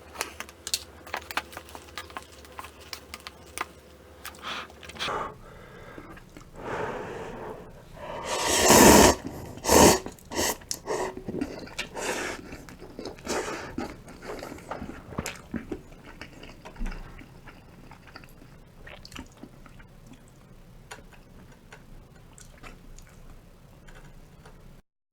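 Close-up eating sounds of cup ramen and a rice ball: chewing and many small sharp clicks of food and utensils, with a loud rushing noise lasting about a second around nine seconds in and a shorter one a second later.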